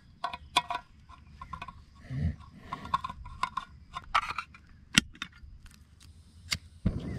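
Swiss Army knife can-opener blade cutting open a steel tin can: a series of irregular metallic clicks and scrapes as the blade punches and levers its way around the lid, with one sharp click about five seconds in.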